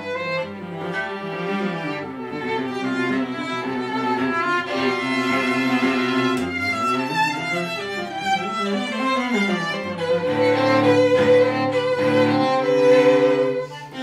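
Violin and cello duo playing. In the last few seconds the cello plays short repeated notes under a held violin note with vibrato, and the music grows louder.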